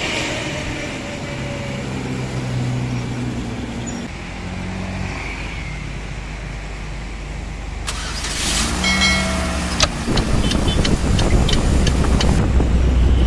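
Road traffic in several short clips: heavy diesel trucks running on the street, with wind rumbling on the microphone in the last few seconds.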